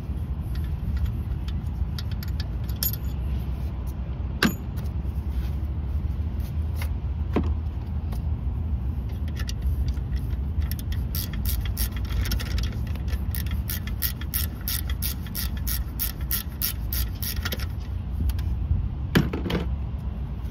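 A hand ratchet clicking in a quick, even run for several seconds midway through, loosening the 13 mm alternator mounting bolt, with a few single metallic clicks before and after. A steady low rumble sits underneath throughout.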